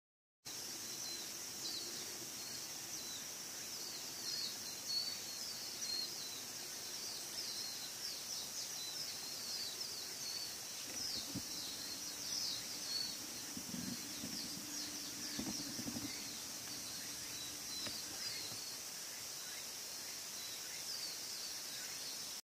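Small birds chirping over and over in quick, short falling notes above a steady high-pitched drone. A faint low hum comes in about halfway through.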